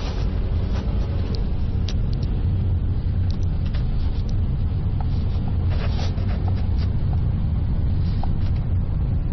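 Steady low engine and road rumble heard from inside a moving car's cabin, with a few small clicks.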